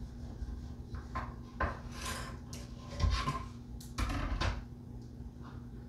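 A clear plastic quilting ruler handled and slid across a wooden tabletop: several short scrapes and knocks, starting about a second in and ending by about four and a half seconds, over a faint steady hum.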